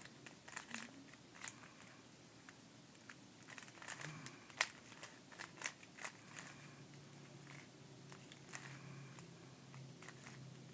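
GAN Air Master 3x3 speedcube being turned during a solve: irregular quick plastic clicks and clacks of its layers, the cube set up loose.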